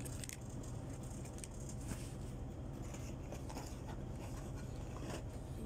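Rustling and light knocks of a cardboard box and its packaging being handled, with a few sharp clicks, over a steady low hum.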